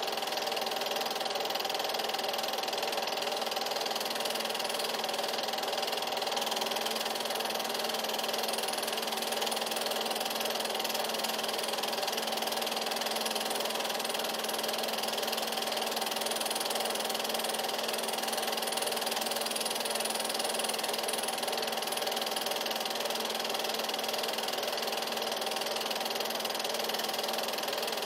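8mm film projector running: a steady mechanical whir of the motor and film transport.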